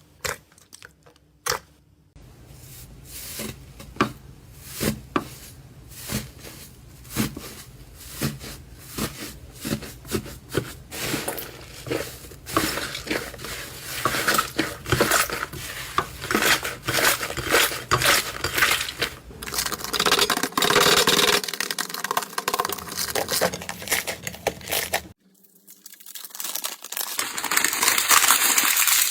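Slime being pressed and stretched by hand: spaced sticky pops and clicks that thicken into dense crackling, with a short break near the end.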